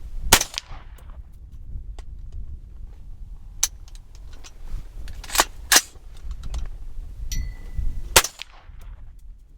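Shots from a 300 Blackout semi-automatic rifle firing 220-grain subsonic ammunition: four sharp cracks with small clicks between them, the rounds failing to cycle the action. A brief high beep comes about seven seconds in, over a low wind rumble.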